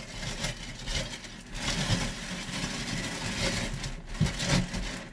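Large plastic trash bag rustling and crinkling as it is pulled up and gathered around by hand, with a few light handling knocks.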